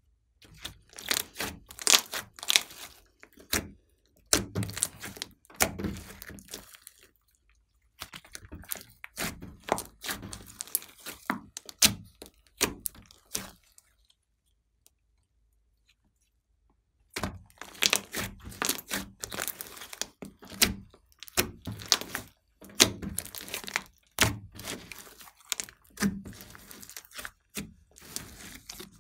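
Glossy slime mixed with clay being stretched, folded and pressed by hand: a quick run of sticky clicks, pops and crackles. It stops for about three seconds halfway through, then starts again.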